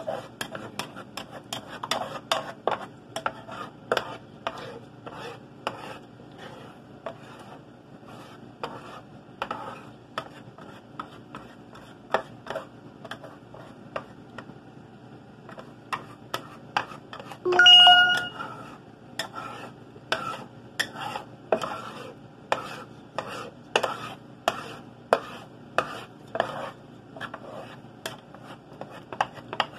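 A utensil scraping and tapping against a frying pan in irregular strokes, about one or two a second, as scrambled eggs are stirred so they don't burn or stick to the bottom. About two-thirds of the way through, a brief, loud ringing tone stands out as the loudest sound.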